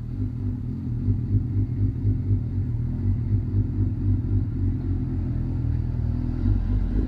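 Suzuki GSX-R600 sport bike's inline-four engine idling through a Yoshimura aftermarket exhaust: a steady low rumble that grows a little louder about a second in.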